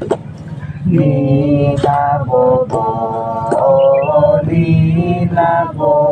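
A small group of voices singing a dendang lullaby together without instruments, in held, chant-like notes, after a short pause for breath about a second in.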